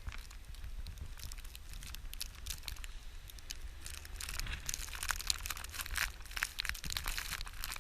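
Footsteps crunching in snow, an irregular run of crackling crunches that gets busier and louder about halfway through.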